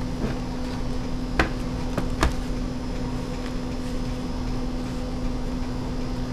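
Two light knocks about a second apart as a plastic laptop is turned over and set down on a desk, over a steady electrical hum.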